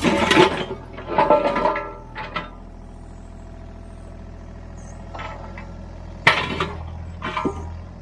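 Mini excavator handling broken concrete slabs with its bucket: concrete scraping and clattering against concrete for the first two seconds, then the engine running steadily, a sharp knock a little after six seconds and a few smaller clunks after it.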